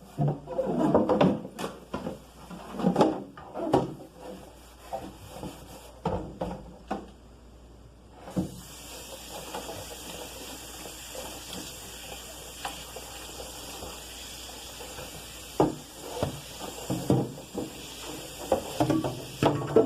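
Knocks and rubbing of things being handled, then a tap running steadily from about eight seconds in, with occasional knocks of items being washed under it.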